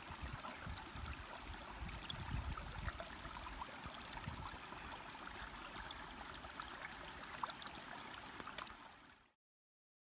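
Small stream water trickling and gurgling over rocks, steady, cutting off suddenly near the end.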